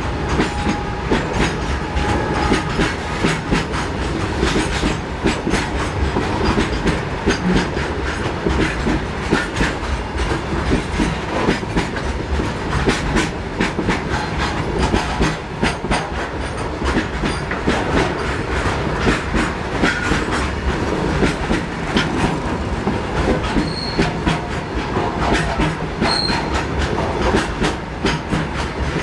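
Goods train of high-sided open wagons rolling past at close range. Its wheels clatter over the rail joints in a steady, continuous run of clicks and knocks over a rumbling roar.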